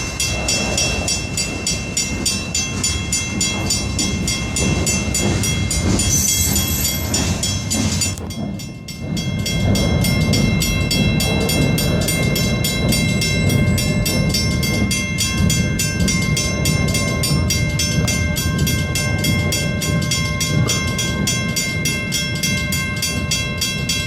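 PNWR freight train cars rolling past with a continuous rumble, steady high tones ringing above it. The sound dips briefly about eight seconds in, then carries on as loud as before.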